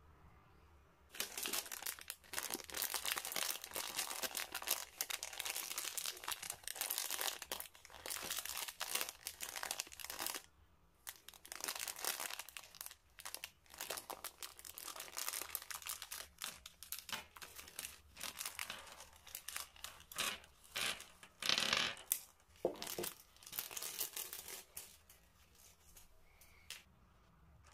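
Crinkly plastic wrapper of a bag of Smarties mini eggs being handled and torn open, a continuous crackling rustle with a few louder rips and rattles late on.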